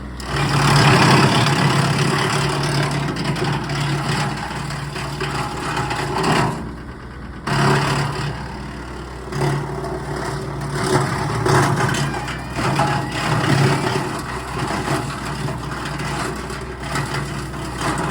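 John Deere 3025E's three-cylinder diesel running steadily to drive a PTO wood chipper, with loud rough chipping noise that surges and eases as branches feed through the rotor, and a short lull about seven seconds in.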